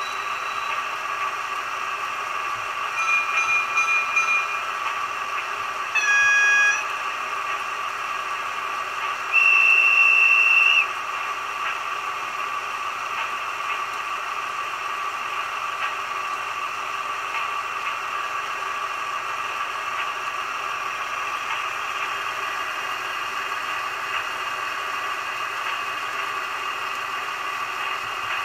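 The ESU LokSound 4 sound decoder in a Fleischmann BR 212 diesel locomotive model plays a steady diesel engine running sound through the model's small loudspeaker. A short pulsing tone comes about three seconds in, a brief horn blast about six seconds in, and a longer, louder horn note around ten seconds.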